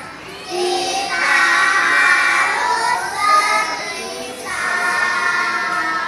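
A group of kindergarten children singing together, two phrases with a short break between them.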